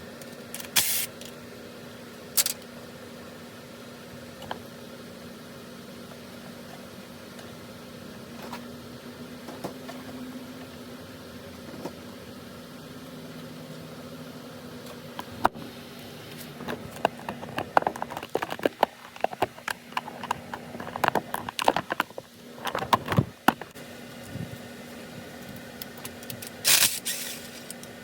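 Hand tools at work on the front timing cover bolts of an engine: scattered metallic clicks, clinks and rattles, busiest in the second half, with a few short loud bursts near the start and the end. A steady fan hum runs underneath.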